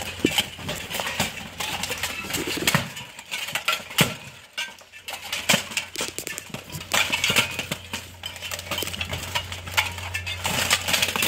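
Steel plate armor clanking and scraping as armored fighters grapple in a clinch: irregular metal clinks and knocks, the sharpest about four seconds in.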